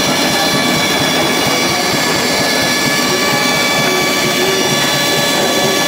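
Antique DC generator running steadily, belt-driven by an engine at about 750 rpm: a constant mechanical whir with several high steady whines. The carbon brushes are audibly rubbing on the commutator, not seated correctly, which the men take for brush drag.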